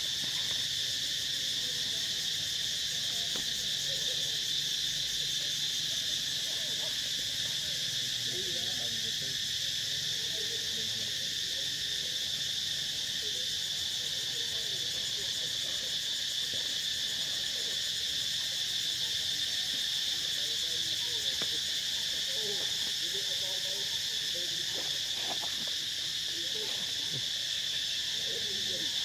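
Steady chorus of forest insects, a continuous high buzz that holds unchanged throughout.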